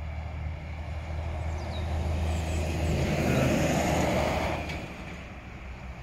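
A road vehicle passing: its noise swells to a peak about three to four seconds in and then fades, over a steady low rumble.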